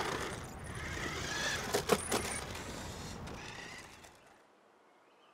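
Small remote-controlled toy car with an electric motor whirring as it rolls across paving, with a few sharp clicks about two seconds in; it winds down and stops about four seconds in.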